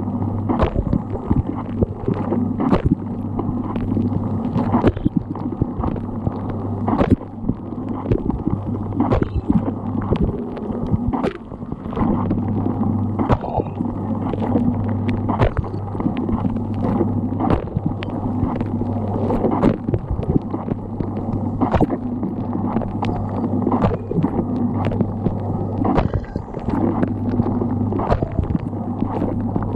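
Dishwasher running a wash cycle, heard from inside the tub: a steady pump hum under a continuous wash of spraying, gurgling water, with frequent sharp knocks. The hum drops out briefly twice, about a third of the way in and again near the end.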